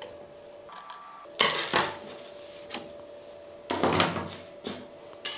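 Hard parts clattering and scraping as the stand is unscrewed and taken off a compact desktop PC: a few separate knocks and scrapes with short clicks between them.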